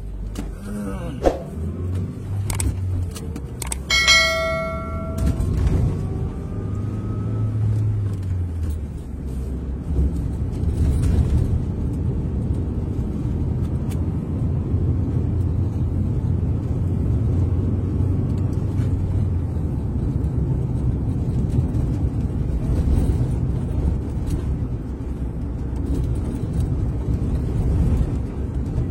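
Steady engine and road rumble of a moving vehicle, heard while riding in it. About four seconds in there is a short, pitched beep lasting about a second.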